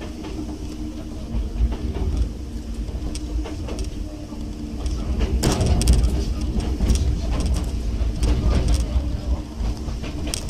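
Enoden electric train running, heard from inside behind the driver's cab: a steady low rumble and motor hum, with wheels clattering over rail joints and points, loudest a little past the middle.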